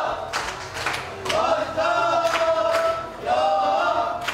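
Voices singing or chanting in long held notes, in two stretches, with several sharp clicks or claps in between.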